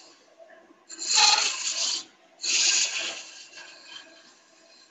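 Gouge cutting a spinning wooden blank on a lathe: two cuts of about a second each, a rough scraping as shavings peel off, over a faint steady hum from the lathe.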